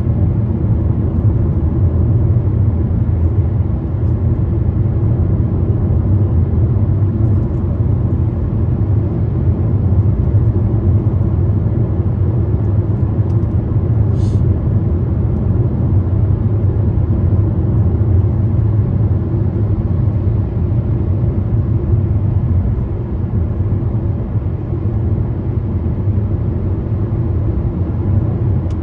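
Steady low rumble of a car driving at motorway speed, heard from inside the cabin: tyre and engine noise.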